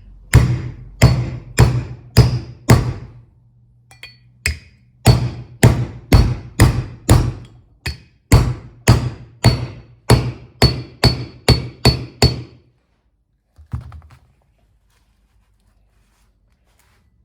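Hammer striking a socket to drive a new seal into a transmission clutch hub bore: about twenty sharp blows, roughly two a second, in three runs, stopping about three-quarters of the way through with one softer knock after.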